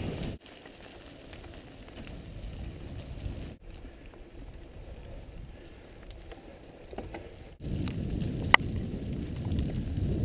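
Mountain bike riding on a wet dirt trail: a low rumble of tyre and wind noise on the bike-mounted camera's microphone, quieter at first and louder for the last couple of seconds, with a sharp click just after it gets louder.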